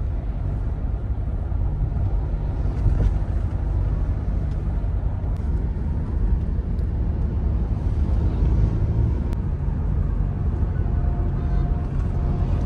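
Steady low rumble of road and engine noise inside a moving Toyota's cabin at highway speed.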